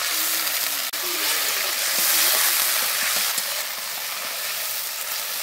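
Hot oil and fried onion-tomato masala in a steel kadai sizzling hard as a little water is poured in. The hiss swells about two seconds in and eases off toward the end.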